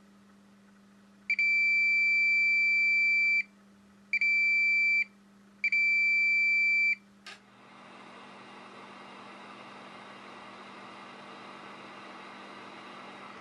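Digital multimeter in diode/continuity mode giving three steady high beeps of about one to two seconds each as the probe touches a line reading near zero volts: the line is shorted to ground. A click follows, then a steady hiss starts about seven and a half seconds in.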